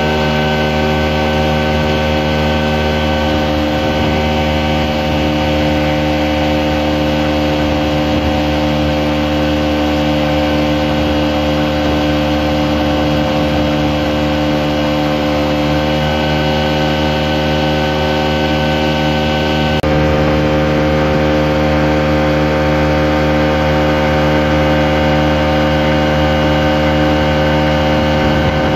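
Outboard motor running steadily at cruising speed, a constant droning hum with a steady pitch. About two-thirds of the way through the tone shifts abruptly and gets slightly louder.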